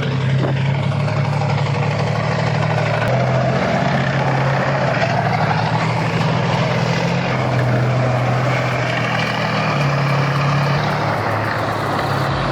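Tank engine running steadily, its pitch rising and falling slightly.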